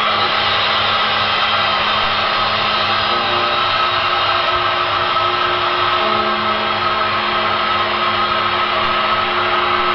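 Dark ambient music: a dense, noisy drone with held low tones, whose pitches shift about three seconds in and again about six seconds in, over a low pulse about three times a second.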